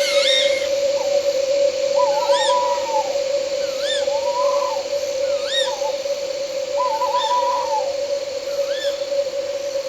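Owl calls at night: a short rising-and-falling call repeated about every second and a half, with three longer wavering calls. A steady drone of night insects runs underneath.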